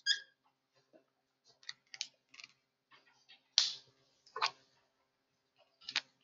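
Dry-erase marker writing on a whiteboard: a short squeak at the start, then a string of brief scratchy strokes as lines and letters are drawn, the longest about three and a half seconds in and another near the end.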